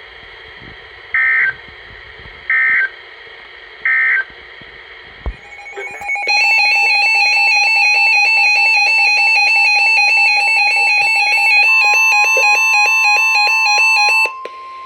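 Three short data bursts of the NOAA Weather Radio SAME end-of-message code, closing the previous warning. About six seconds in, a loud electronic alert alarm starts beeping rapidly and runs for about eight seconds. A steady warning alarm tone joins beneath it for its last few seconds, signalling that a new warning follows.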